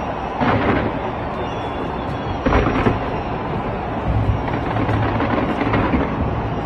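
A fireworks display going off in a continuous rumble of booms and crackles. Louder bursts come about half a second in, at about two and a half seconds, and again around four and six seconds.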